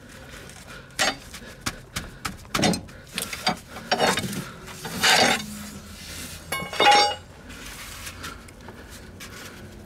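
Metal hand tools being handled against the car's suspension parts. First comes a run of sharp metallic clicks and knocks, then louder clattering and scraping, with a short ringing clink about seven seconds in.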